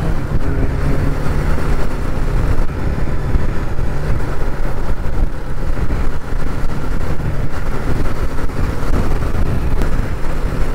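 BMW adventure motorcycle's engine running at a steady speed while riding, with road and wind noise.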